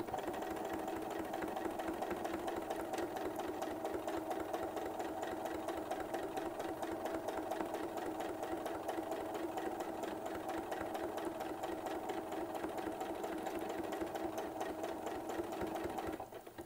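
Janome Decor Computer DC3050 sewing machine running steadily at a fairly high speed, the needle stitching rapidly through a thick quilt sandwich in free-motion quilting. It stops abruptly just before the end.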